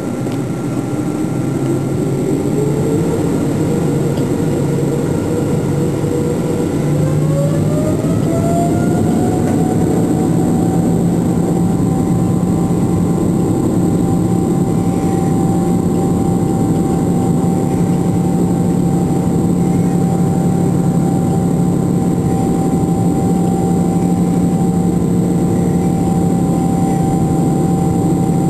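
Boeing 777 twin turbofan engines heard from inside the cabin, spooling up for takeoff. A whine rises in pitch, holds, then rises again about seven seconds in as the engines come up to takeoff thrust. It then settles into a steady high tone over a loud, even drone as the plane rolls down the runway.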